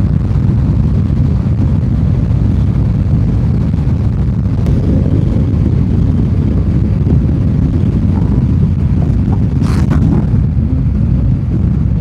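Wind buffeting the microphone of a moving motorcycle, with the engine and road noise underneath as a steady low rush. A short burst of hiss comes near the end.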